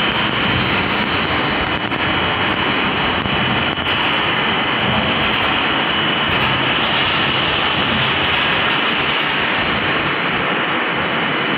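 An 8 ft plywood veneer peeling lathe and its line machinery running steadily: a continuous loud mechanical noise with a constant high whine.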